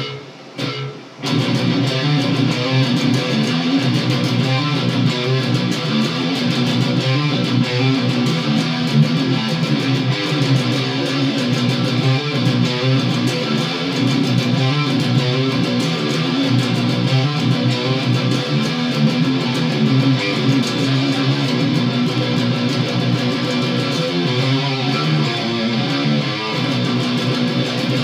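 Electric guitar playing a continuous, busy riff, after a few short separate chord strikes in the first second or so.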